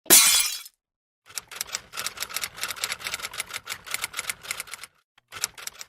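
A short noisy burst, then about three and a half seconds of quick, irregular clicks, with a few more clicks near the end: a sound effect.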